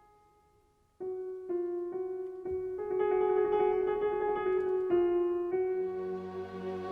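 Soundtrack music: a solo piano plays a slow melody one note at a time after a brief near-silent pause, and low sustained string notes come in near the end.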